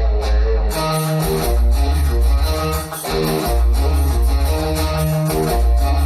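A song with guitar and heavy bass playing loudly through a 5.1 home amplifier's speakers and subwoofer. The deep bass dips briefly a few times.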